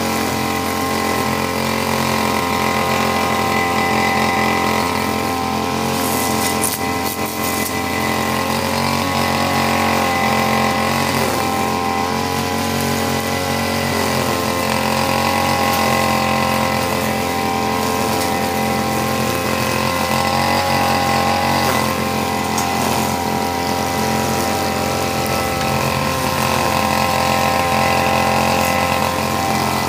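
Backpack brush cutter's small petrol engine running steadily at cutting speed while its blade mows grass, the pitch rising and dipping slightly as it works.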